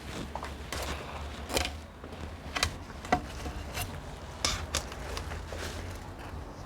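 Scattered light clicks and taps of hands handling the iMac and its surroundings over a steady low hum.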